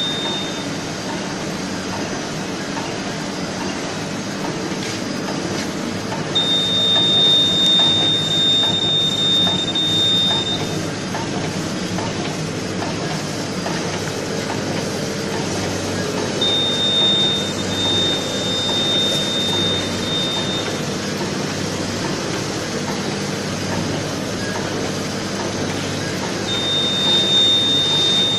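A machine running steadily with a loud mechanical clatter. A high, steady tone comes on for about four seconds roughly every ten seconds, with a slight rise in loudness each time.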